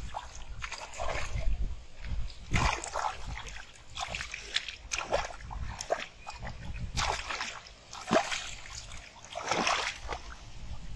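Irregular splashing and sloshing in shallow muddy water as a large fish thrashes at the surface and a person wades and grabs at it with bare hands and feet, the splashes coming in uneven bursts every second or so.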